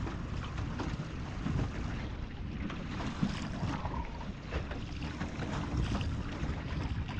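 A motor running steadily while travelling, with heavy wind noise on the microphone and scattered knocks.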